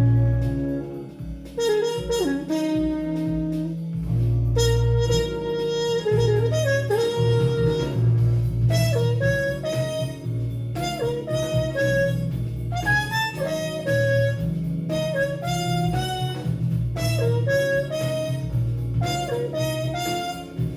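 Jazz-fusion band recording: a lead melody of held notes and quick phrases over a sustained electric bass line.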